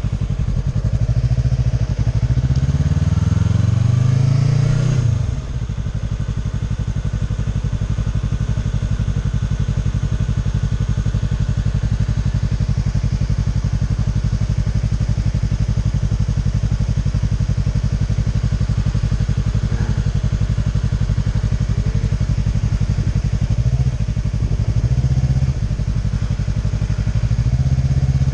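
Motorcycle engine revving up for a few seconds, then dropping back sharply to run steadily at low speed for a long stretch, with short rises in revs near the end, as the bike is ridden slowly around a figure-eight course.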